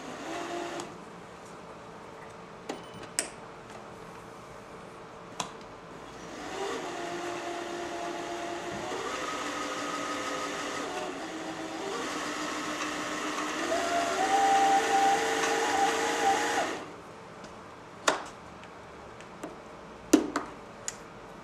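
Janome Jem Platinum 760 sewing machine motor running for about ten seconds to wind the bobbin, starting about six seconds in. Its pitch steps up and down, rises near the end, then cuts off. A few light clicks come before and after.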